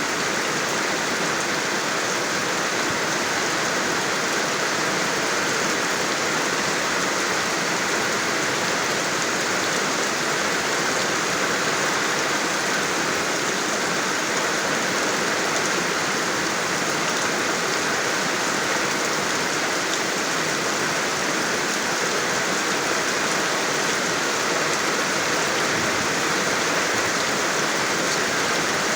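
Steady rainfall, an even hiss of rain with no breaks or distinct drops standing out.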